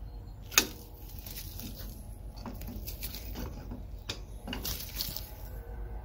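Large vice grips (locking pliers) clacking and scraping against a cast brake caliper as the caliper piston is pushed back in, with one sharp metallic click about half a second in and smaller clicks after.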